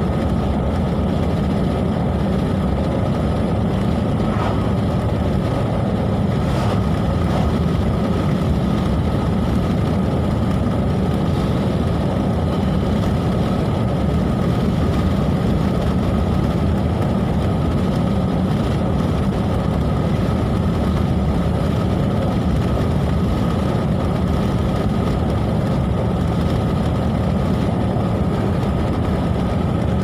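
Car driving steadily along the road, heard from inside the cabin: even engine and tyre noise with a faint steady whine over it.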